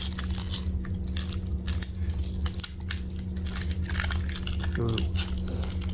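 Foil Pokémon booster pack being torn open and crinkled, a run of crackly rustling over a steady low hum.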